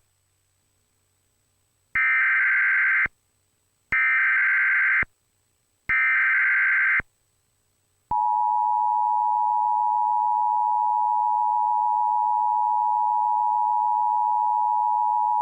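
Emergency Alert System signal from a Trilithic EASyPLUS: three short bursts of warbling SAME digital header data, then the steady two-tone EAS attention signal for about eight seconds. This is the header and alert tone that open the next blizzard warning.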